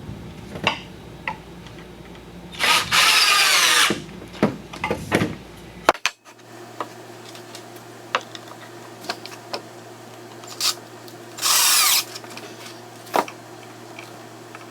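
Power drill driving screws into wood in two runs, a longer one early on and a short one near the end, with the motor pitch sweeping as it loads. Light knocks and clicks of handling wood and tools between the runs.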